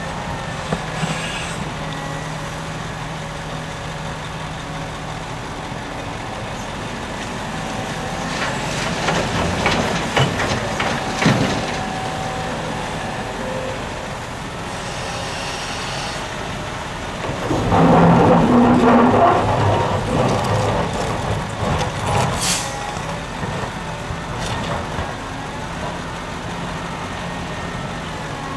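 Liebherr R974B crawler excavator's diesel engine running steadily while it loads a dump truck. Bucketloads of soil and stones clatter and rumble into the truck's steel dump body, the loudest about 18 seconds in. A short sharp hiss follows a few seconds later.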